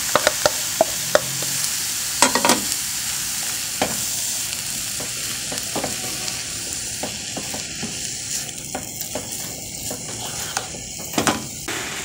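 Cooked lentils tipped from a bowl into a frying pan of carrot and onion, then stirred in with a wooden spoon: a steady sizzle with clicks and scrapes of the spoon against the pan. The scraping is louder about two seconds in and again near the end.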